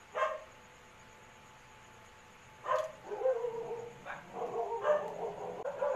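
Pet dogs barking and whining: a short yip at the start, then, from about halfway through, a run of barks with drawn-out whines.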